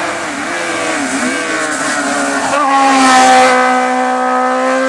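Race car engine at high revs, its pitch wavering for the first couple of seconds, then jumping about two and a half seconds in and holding high and steady. Loudest a little past the middle, with a rush of noise as the car comes closest.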